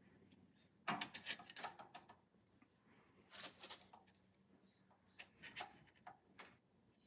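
Faint clicks and light knocks from handling slip-joint pliers clamped in a vise while their jaw play is measured: a quick cluster about a second in, then a few scattered clicks.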